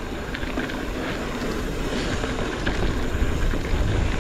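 Hardtail mountain bike riding down a dirt singletrack, heard from a rider-mounted camera: a steady rush of wind over the microphone with low rumble from the tyres rolling on dirt, and scattered light ticks and rattles from the bike.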